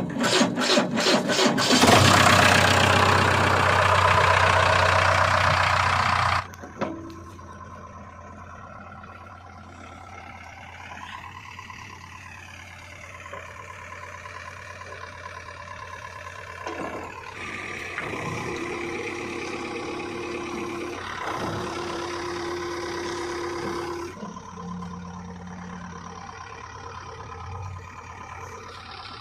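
Diesel engine cranking with rapid starter strokes and catching, running loud for a few seconds, then dropping suddenly in level and running on with its speed rising and falling at times.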